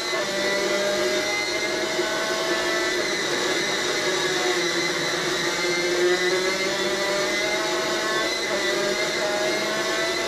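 Superkart's two-stroke racing engine at full race pace on board, its high-pitched note falling and climbing again a few times as the driver lifts off and accelerates through the corners.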